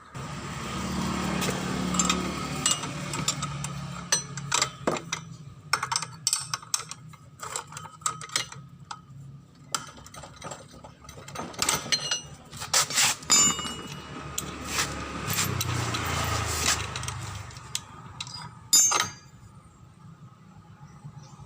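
Metal tools and parts clinking, tapping and rattling as a scooter's CVT case is worked on, with many short knocks. A low mechanical hum comes in twice, once at the start and again after about fifteen seconds.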